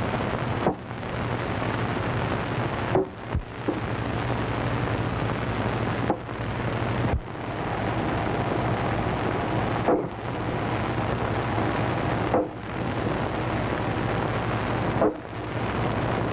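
An axe chopping into wood, a sharp single strike about every two to three seconds, over a steady loud hiss and a low hum.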